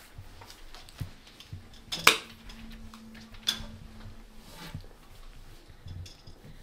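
A few short, sharp clicks and knocks, the loudest about two seconds in, with a faint steady hum between them.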